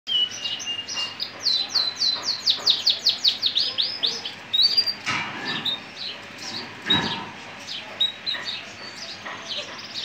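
Male Gibber canary singing. A held whistle is followed by a fast trill of repeated falling notes, then scattered chirps and short trills.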